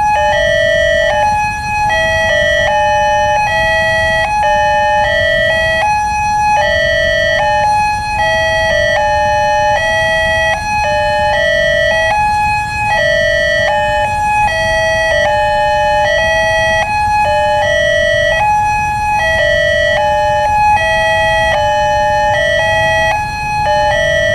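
Electronic two-tone warning sirens of an Indonesian railway level crossing, alternating between a high and a low tone in a steady repeating cycle. Several units sound at once out of step with each other, with a low rumble underneath.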